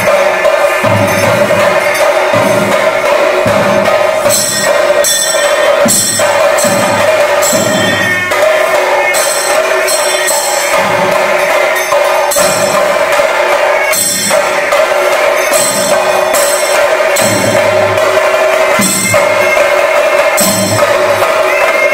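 Chenda drums beaten in fast temple percussion, with sharp bright strikes over the drumming and a steady held tone underneath.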